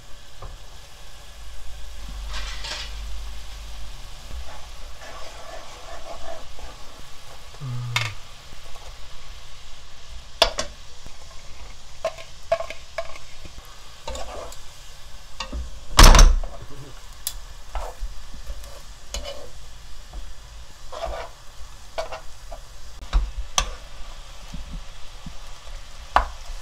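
Soy-sauce glaze sizzling in a nonstick wok while dried shredded squid is stirred and tossed through it. Utensils click and scrape against the pan throughout, with one loud knock a little past the middle.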